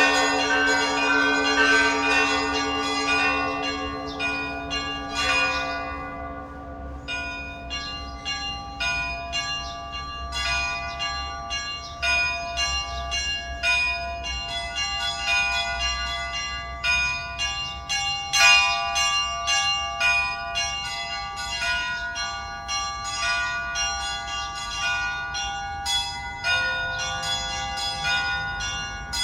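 Church bells ringing: several bells struck in quick succession, their tones overlapping in a dense peal. A deeper bell's tone dies away over the first few seconds.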